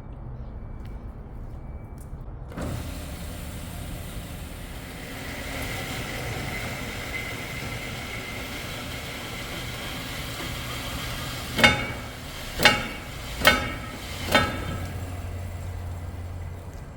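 Metal-cutting saw running through steel square hollow section: a steady motor hum with a high cutting tone over it. About two-thirds through come four sharp, ringing metal clanks, roughly a second apart.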